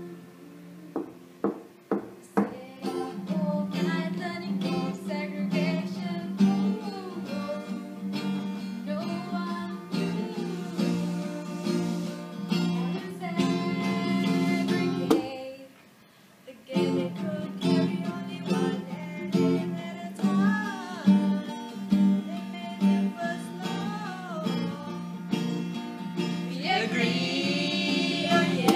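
Acoustic guitar strummed in chords, with a voice singing a melody over it. The music breaks off for about a second around the middle, then carries on.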